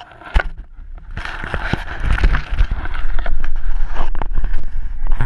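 Close scraping and knocking on a GoPro camera's case as it is jostled and tipped about, a loud rubbing noise right on the microphone with many small clicks. It swells about a second in and stays loud.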